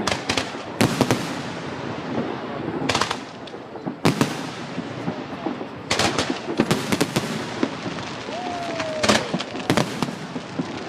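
Fireworks exploding: about a dozen sharp bangs at irregular intervals, some in quick clusters, each trailing off, over crowd voices.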